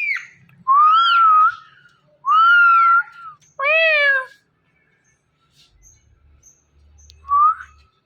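Indian ringneck parrot whistling: a falling note at the start, then three whistled calls that rise and fall in pitch in the first half, and one short whistle near the end.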